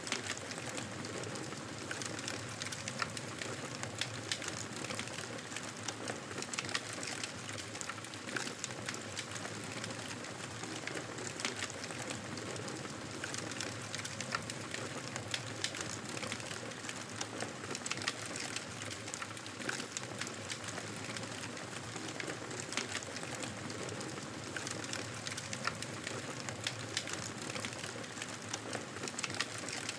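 Campfire crackling: a steady hiss of burning with many small, sharp pops and snaps of the wood, scattered irregularly throughout.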